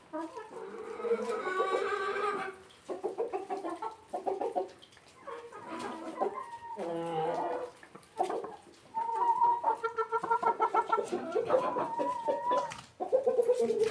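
Hens clucking and calling: runs of short clucks broken by a few longer, drawn-out calls.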